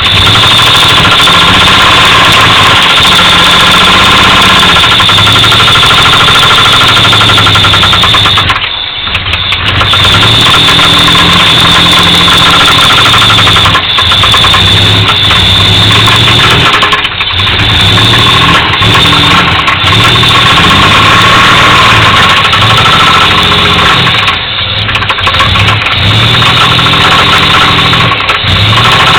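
1985 Pontiac Firebird engine running with a knock, its speed rising and falling several times as it is revved, with brief drops near 9, 17 and 24 seconds in.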